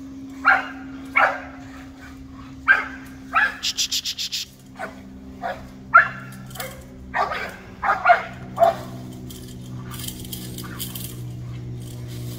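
Dogs barking in short, sharp barks while holding a cornered deer at bay, with a quick run of rapid barks about four seconds in; the barking dies away in the last few seconds.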